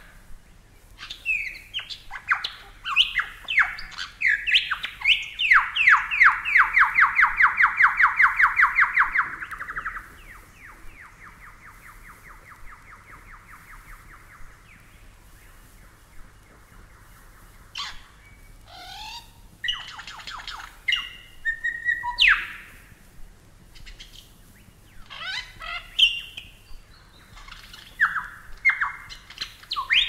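Superb lyrebird singing: a run of falling notes that speeds up into a loud, rapid, evenly repeated series, then carries on more quietly. After a short pause, varied whistles and sweeping calls follow.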